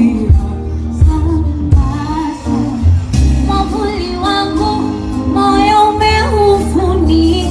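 A woman singing pop music over a backing track with a strong, repeated bass beat, with long held notes.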